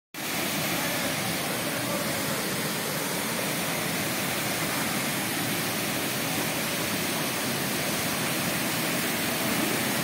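Waterfall pouring over boulders into a pool: a steady, unbroken rush of falling water.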